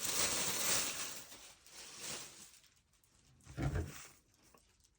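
Plastic packaging bag crinkling and tearing as it is pulled open by hand, strongest in the first second and a half and then fading. A single soft thump about three and a half seconds in.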